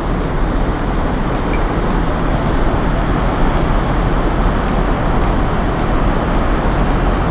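Airbus A380 cabin noise in flight: a steady rushing roar of airflow and engines heard inside the cabin, with a few faint small clicks.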